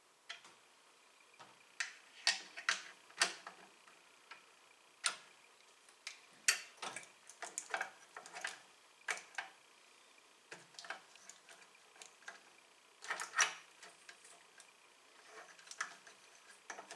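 Irregular light clicks and taps from small plastic and metal parts being handled during the snowblower light and wiring installation, in scattered clusters with short pauses.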